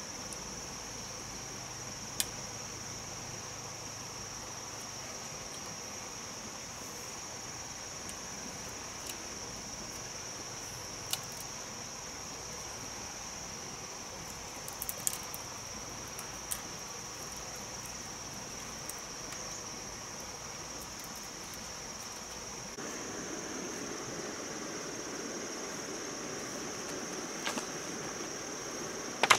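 Insect chorus, a steady high-pitched drone over a soft hiss, with a few sharp clicks. About 23 s in the lower background noise abruptly gets louder.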